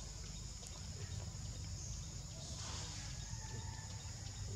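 Steady high-pitched drone of insects over a low rumble, with a brief rustling swell a little past halfway.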